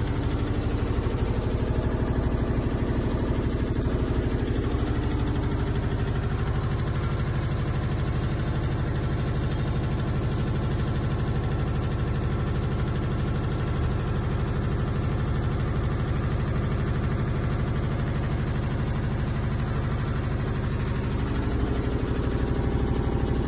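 Front-load washing machine running: a steady motor-and-drum hum with a fast, even pulsing, somewhat louder in the first few seconds and again near the end.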